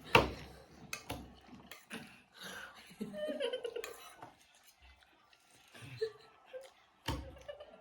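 Spoons clinking against bowls while eating, a few sharp clicks, with soft giggling and low murmured voices in between.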